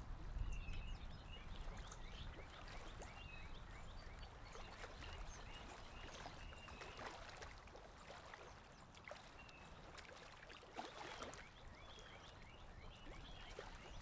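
Faint lakeside ambience: lake water lapping softly, birds chirping in short repeated calls, and a light breeze that is strongest in the first couple of seconds and then eases.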